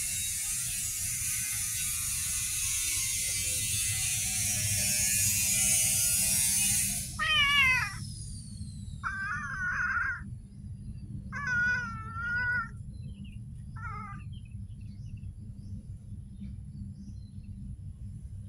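A steady high hiss for about the first seven seconds that cuts off suddenly, then a cat meowing four times, the longest call about a second long.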